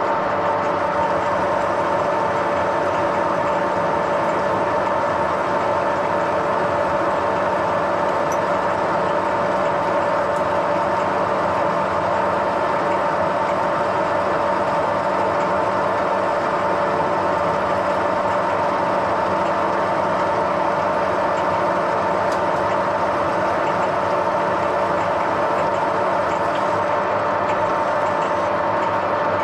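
A metalworking machine tool running steadily, a constant motor and gear whine with even mechanical noise and no change in speed.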